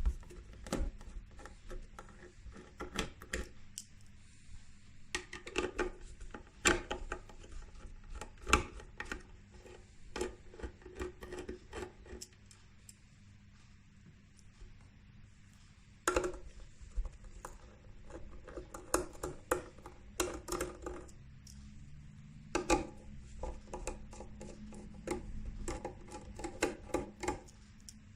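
Screws being backed out of the base of a UFO light with a screwdriver: irregular scraping, clicks and light metallic knocks, with a quieter stretch in the middle.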